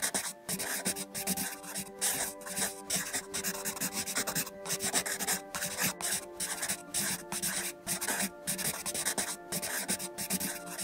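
Scratchy brush strokes on paper, one after another at about two or three a second, over soft background music with held notes.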